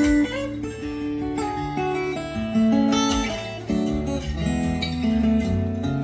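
Acoustic guitar music playing over a car audio system with a Pioneer AVH head unit, Audison amplifiers, three-way Stealth speakers and a 10-inch Gramond subwoofer: strummed and plucked notes over a steady bass.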